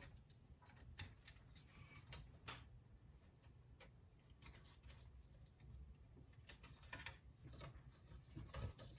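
Faint scattered clicks and taps of a navigation unit's circuit boards being handled and pressed apart at their board-to-board plug, with a sharper click about two seconds in and a short cluster of clicks near seven seconds.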